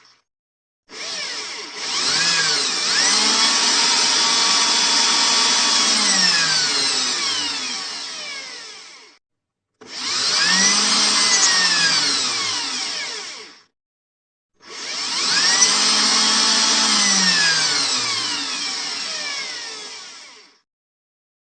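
Power drill run three times: each time the motor spins up with a rising whine, holds, then winds down as the trigger is released, with short silences between the runs.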